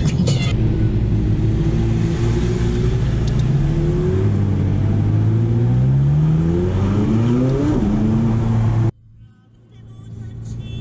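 McLaren twin-turbo V8 heard from inside the cabin, accelerating with its pitch climbing through a couple of gears. The sound drops away suddenly near the end and then builds back up.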